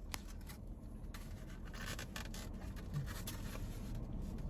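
Handling noises: light scraping, rustling and a few clicks, over a steady low rumble.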